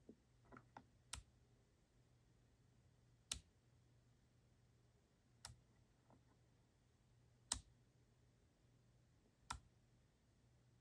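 Single keystrokes on an EPOMAKER Shadow-X mechanical keyboard: a sharp clack roughly every two seconds, six in all, with a few softer key taps in between.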